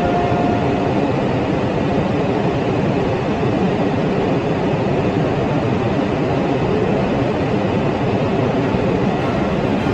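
Steady rushing flight-deck noise of a Boeing 747-400 in flight, the hiss of airflow and air conditioning, with no change in level. A faint steady tone dies away about a second in.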